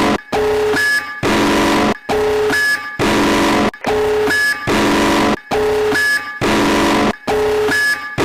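Harsh electronic emergency alert alarm tone repeating: pulses a little under a second apart, alternating between two different tones, each with a loud hiss behind it.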